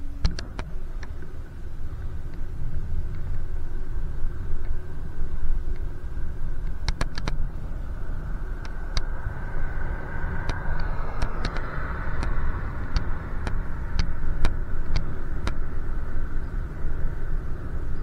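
Steady low wind and road rumble from riding a bicycle in traffic, with a motor vehicle going by about ten to thirteen seconds in. Scattered sharp clicks and rattles run throughout.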